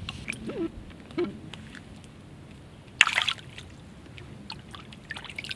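A single short splash in shallow creek water about three seconds in, as a small caught fish is let go at the bank, with faint sloshing and dripping around it.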